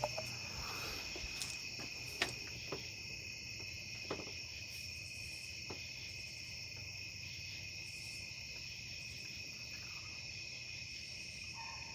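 Crickets chirring steadily in the night, with a few faint clicks here and there.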